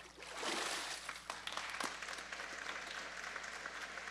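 Congregation applauding, the clapping swelling about half a second in and then keeping on steadily.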